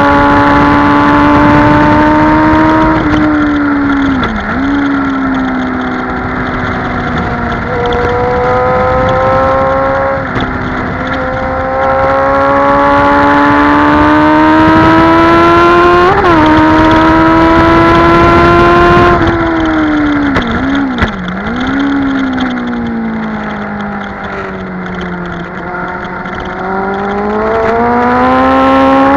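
Motorcycle engine heard onboard at hard track pace: its note climbs steadily through each gear and drops sharply at each gear change. A few quick blips come as it downshifts for a corner a little after the middle, the revs stay low through the bend, then climb again near the end.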